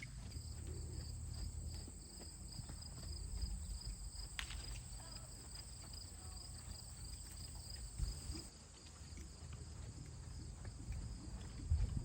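Insects chirping steadily outdoors, a high pulsing trill about three beats a second over a thin high hum that stops about two-thirds of the way through, with a low rumble and a few soft thuds underneath.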